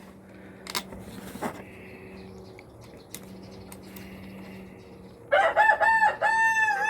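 A rooster crows: a few short notes, then one long held note that falls away at the end. Before it, a couple of light clicks.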